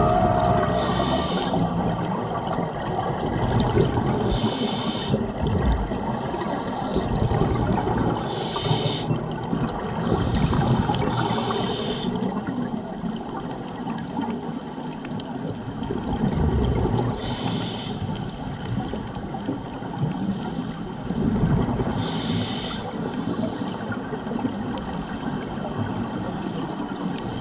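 Scuba diver breathing through a regulator underwater: a short hissing inhale every few seconds, with the gurgling bubbles of each exhale in between.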